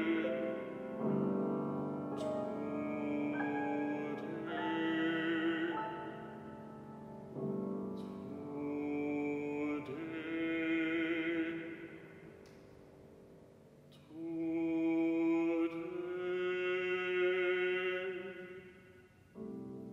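Bass-baritone singing a classical art song in long phrases of held notes with vibrato, accompanied by grand piano. The voice stops about a second before the end, leaving the piano.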